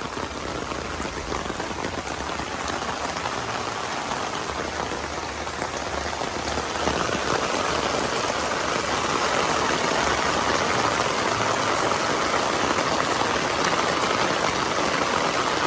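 Heavy rain falling steadily on a flooded garden with standing water, a continuous hiss of drops that grows louder about halfway through.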